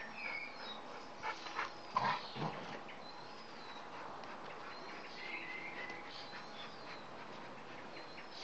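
Bernese Mountain Dogs, an adult and a puppy, play-fighting, with a few short dog vocal sounds clustered between about one and two and a half seconds in.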